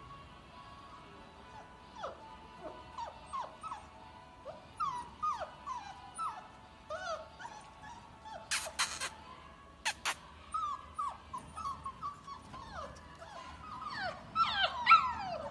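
Husky puppies whimpering and yipping in many short, high-pitched calls that slide down in pitch, coming thicker and louder near the end. A few sharp clicks come about nine and ten seconds in.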